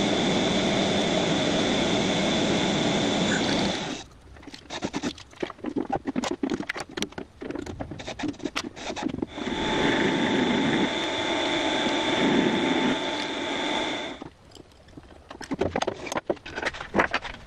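Metal lathe running with a steady whine while turning a metal bar, stopping about four seconds in. Then scattered clicks and scrapes of metal chips being handled, the lathe runs again for about five seconds and stops, followed by more clicking.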